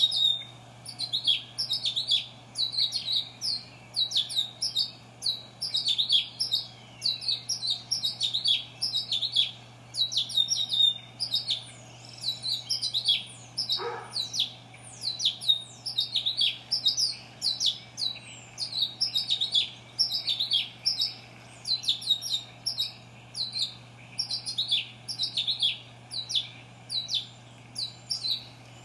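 Birds chirping: quick, high chirps in tight clusters, several a second, without a break.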